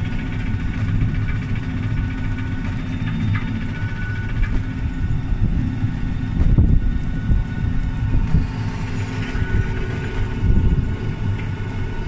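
Tractor-drawn potato harvester running as it lifts potatoes: a steady machine rumble with a thin steady whine above it, and louder low surges about halfway through.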